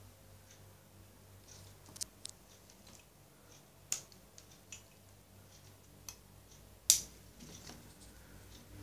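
Several separate sharp clicks and taps over a faint low hum, the loudest about seven seconds in.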